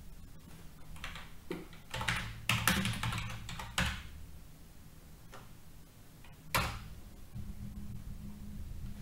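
Typing on a computer keyboard: a quick run of keystrokes, then a single sharp click a few seconds later. A low steady hum runs underneath.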